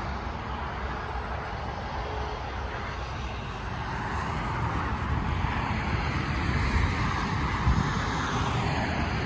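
Large diesel farm machinery running steadily: a low rumble with a broad rushing noise that grows louder from about four seconds in.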